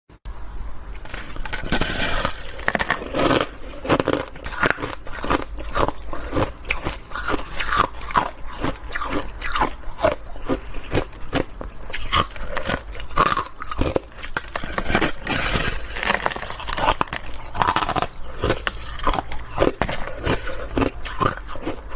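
A person biting and chewing a frozen block of shaved ice: a dense, irregular run of sharp, brittle crunches.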